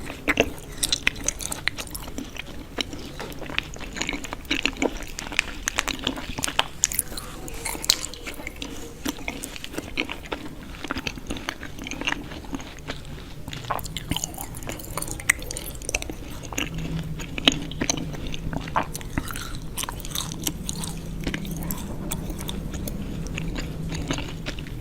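Close-miked biting and chewing of something crunchy: dense, irregular sharp crunches and crackles, with a faint low hum in the second half.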